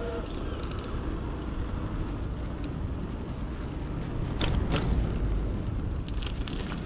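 Steady wind buffeting an action camera's microphone, with road noise from a moving electric bike. A couple of sharp rattles come about four and a half seconds in as the bike rolls over rough, patched tarmac.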